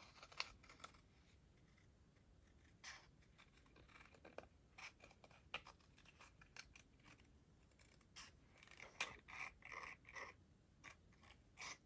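Scissors cutting a paper planner dashboard by hand: quiet, scattered snips with pauses between them.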